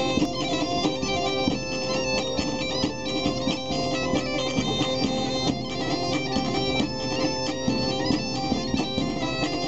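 Lively folk dance tune on a droning wind instrument: a steady drone holds under a quick melody.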